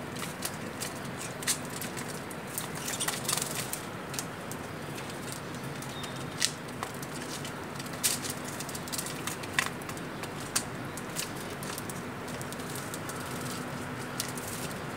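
Small caged finches, canaries among them, fluttering and moving about a feeder, with many sharp clicks and taps and a few short chirps over a steady low hum.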